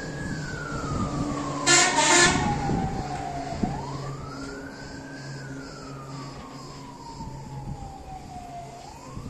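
Emergency vehicle siren wailing slowly up and down, rising quickly and falling more slowly, about once every five seconds. A short loud horn blast comes about two seconds in, and a steady engine hum runs underneath.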